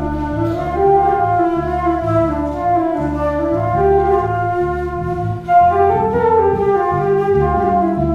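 Live trio of flute, accordion and electric bass guitar playing. The flute carries the melody over a moving bass line.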